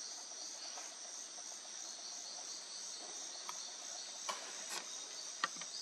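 Steady chorus of forest insects, high-pitched and finely pulsing, with a few sharp clicks in the second half, the loudest near the end.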